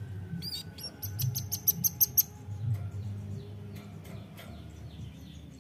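Velvet-fronted nuthatch calling: a fast run of sharp, very high-pitched chips, about a dozen in under two seconds, starting about half a second in. Only faint notes follow.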